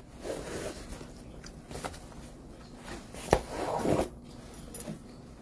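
Faint rustling and handling noises at a desk, with one sharp click about three seconds in.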